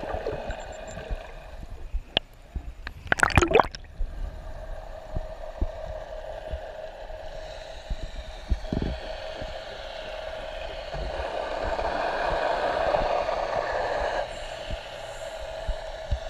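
Underwater, a scuba diver's regulator breathing: exhaust bubbles gurgling out, with a short loud burst about three seconds in and a longer rush from about eleven to fourteen seconds in, over a steady hum.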